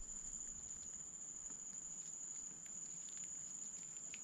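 A steady, high-pitched insect drone, with a few faint light clicks.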